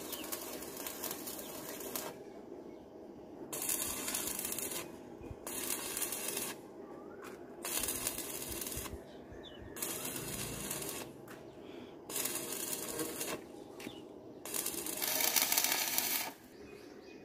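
Stick (arc) welding: about seven hissing welding bursts of a second or so each, with short pauses between, tacking a mild-steel handrail post to its base plate.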